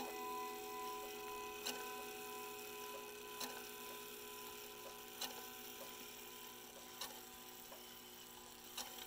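Howard Miller clock's chime rods ringing out after a chime, a cluster of steady tones fading away, the higher ones dying first. Under them the movement ticks evenly, with a sharper click about every two seconds.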